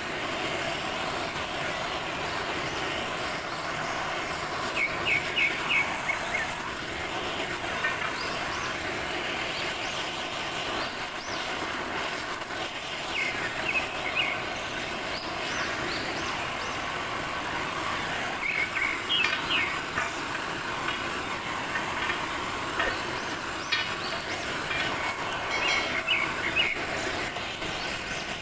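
Gas cutting torch flame hissing steadily as it heats a steel pipe for bending, with a few short clusters of high ticks now and then.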